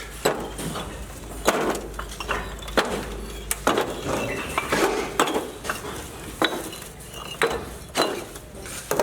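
Sharp metallic clinks of a tool striking hard material on a construction job, about one strike a second, with rougher scraping noise between the strikes.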